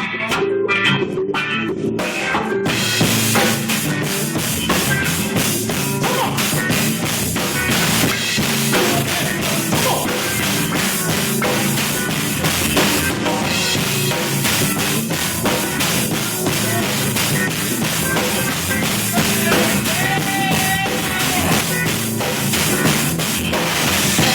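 Live band playing a song: electric guitar and bass guitar, with a drum kit coming in about two and a half seconds in and playing steadily with them from then on.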